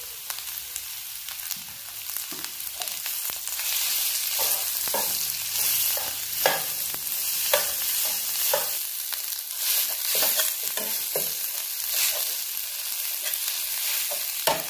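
Boiled potatoes frying in spiced oil in a frying pan, sizzling as a steel slotted spatula stirs and scrapes them. The sizzle grows louder a few seconds in, and from then on the spatula knocks against the pan about once a second.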